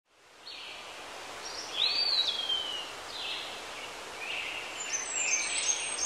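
Outdoor forest ambience fading in: bird calls over a steady background hiss, with one whistle that rises, arches and slides down about two seconds in, and brief high chirps near the end.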